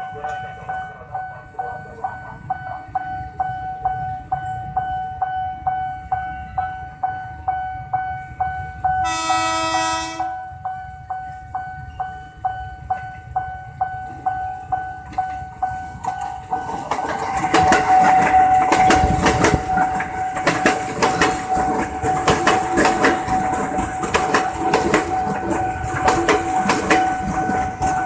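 Train passing: a regular ticking over a steady ringing tone, a short horn blast about nine seconds in, then from about seventeen seconds the louder rush and rapid wheel clatter of the train going by.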